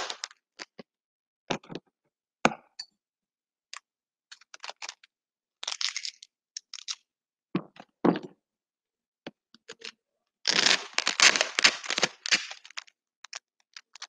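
Adhesive packing tape being pulled off its roll, with a longer stretch of unrolling from about ten and a half seconds to nearly thirteen. Scattered clicks, taps and knocks of the roll and tools being handled and set on the table between pulls.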